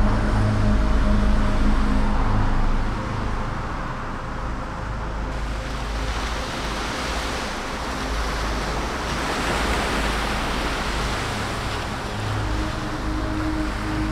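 Small waves washing onto a sandy beach, the surf swelling and fading. A steady low hum runs under it for the first three seconds or so, then stops.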